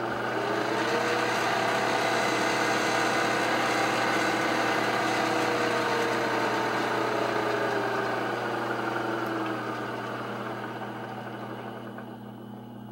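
Sewing machine motor running under an electronic foot pedal that clips the AC sine wave. Its whine climbs in speed over the first few seconds, then slowly winds down and fades through the second half, over a steady low hum.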